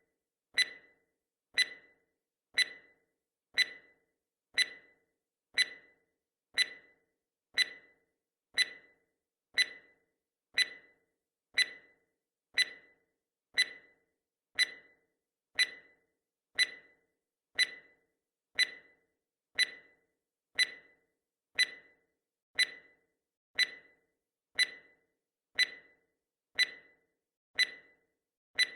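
Countdown timer's clock-tick sound effect: one sharp tick every second, each dying away quickly, marking off the seconds.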